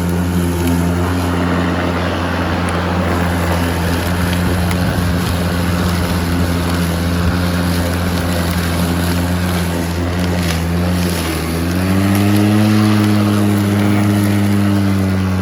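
Ryobi 40V brushless battery lawn mower's motor and blade running steadily while cutting grass, with an even hum. About two-thirds of the way through the pitch rises and stays higher: the mower speeds up its blade in thicker grass.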